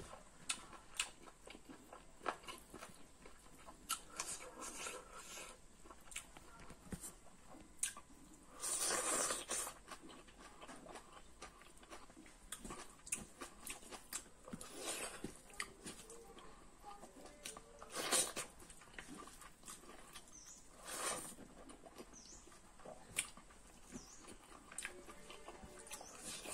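Close-up eating sounds of a person chewing rice and chicken curry eaten by hand: many small wet mouth clicks, with a few louder noisy bursts, the longest about a third of the way in.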